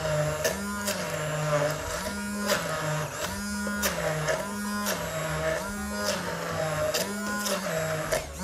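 Handheld immersion blender running in a plastic beaker, puréeing cavolo nero, mixed nuts and olive oil into a pesto. Its motor hum dips and rises in pitch about once a second, with repeated clicks.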